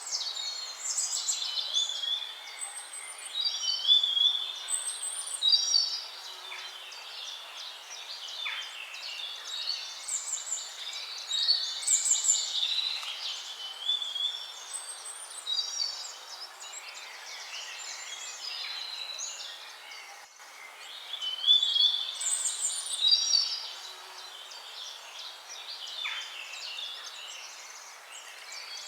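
A mix of songbirds singing and chirping over one another in quick high trills and twitters, over a faint steady hiss.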